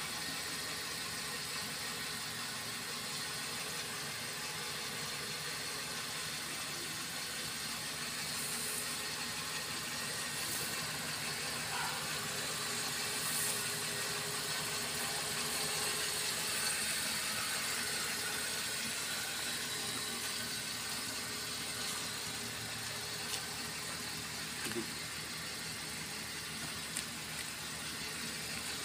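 Toyota Avanza's engine idling steadily, with a few short clicks in the last few seconds.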